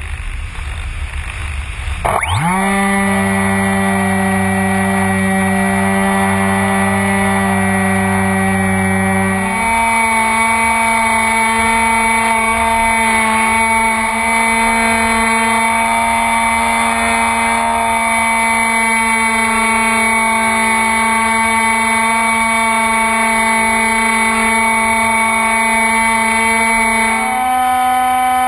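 Electric motor and propeller of a Beta 1400 RC plane. After a windy start it spins up with a quick rising whine about two seconds in. It then holds a steady whine, which steps to a higher pitch about ten seconds in and rises slightly again near the end.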